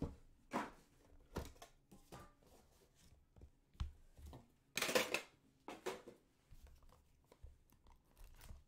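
A cardboard trading-card box being handled and opened: scattered knocks and scrapes as it is set down, with a louder tearing rustle about five seconds in as its seal is cut and torn.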